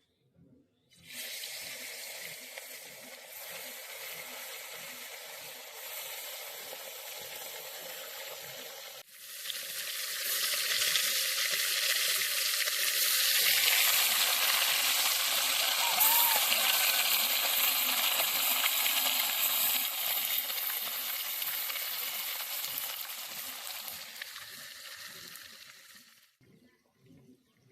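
Pieces of katla fish sizzling as they fry in hot oil. The sizzle starts about a second in, grows louder after about ten seconds, and cuts off suddenly near the end.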